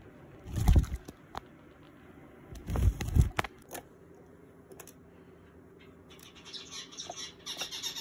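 Java sparrow flapping onto the rim of a plastic bird bath: two soft thumps of wings and landing, a few light clicks of feet on plastic, then quick wing-fluttering and splashing as it starts bathing in the water, from about six and a half seconds in.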